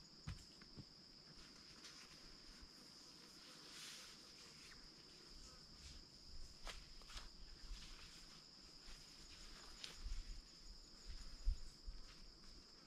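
Insects calling in a steady high-pitched drone, with scattered rustles and soft thumps of a person moving about on bare earth and leaf litter, the loudest thumps near the end.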